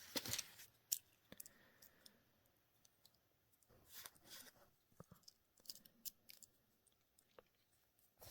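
Faint, scattered clicks and light handling noise from a multi-tool pocket knife being handled and its tools folded, mostly in a few small clusters about four and six seconds in.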